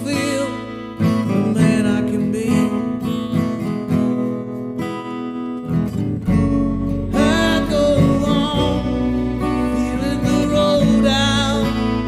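Acoustic guitar strumming in an original song, with a deep bass part coming in about six seconds in.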